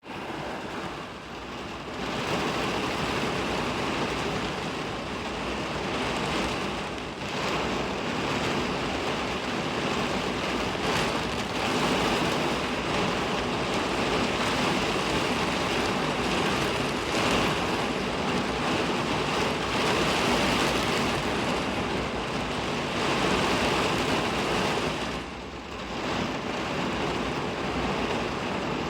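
Heavy typhoon rain pouring down in a steady, dense hiss that briefly eases a few times.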